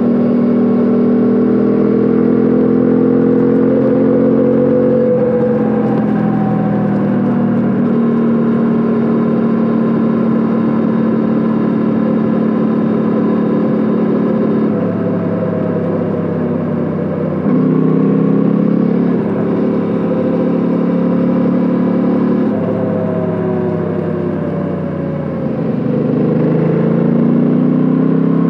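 Suzuki V-Strom 800DE's 776 cc parallel-twin engine and exhaust running steadily at about 100 km/h. The engine note shifts in pitch a few times with throttle changes, eases off about 25 seconds in, then rises again as the bike accelerates near the end.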